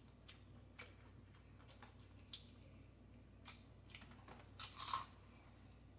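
Faint clicks and light crackles of tortilla chips being handled, then a few crisp crunches about four and a half seconds in as a chip is bitten.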